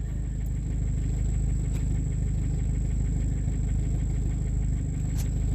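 Vehicle engine running steadily at low revs, a low, even rumble heard from inside the vehicle.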